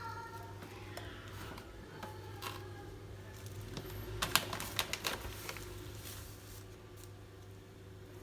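A quick run of light clicks and taps about halfway through, a few more scattered before it, over a steady low hum.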